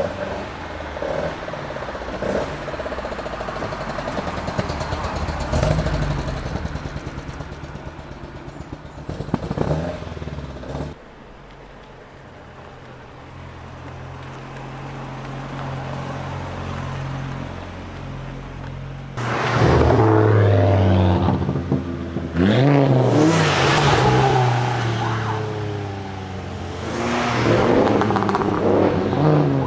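Ford cars' engines as they pull away one after another: a Mk2 Focus RS's turbocharged five-cylinder running as it drives off, then a quieter engine pulling away slowly after a sudden cut. From about twenty seconds in, engines are revved hard, the pitch sweeping up and down with each blip and gear change.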